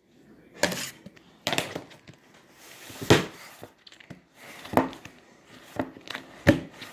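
Hands squeezing and poking slime, giving about six irregular sharp squishes and pops, a second or so apart.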